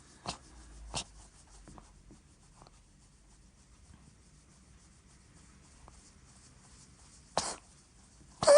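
A cat sneezing: two short sneezes near the start, a long pause, then two more near the end, the last one the loudest.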